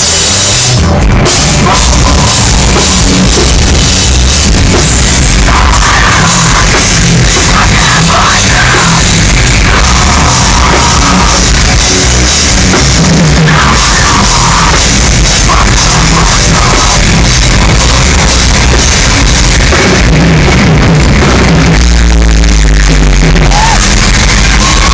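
Live metalcore band playing loud: distorted electric guitars, bass and a drum kit. It is picked up close to full scale on a phone microphone in the crowd, so the sound is overloaded and dense throughout.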